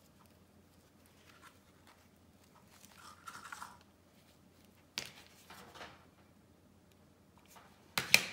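Hands handling a ribbon bow tie and fold-over elastic: soft rustling and crinkling about three seconds in, a sharp click at about five seconds, and a louder sharp snap near the end.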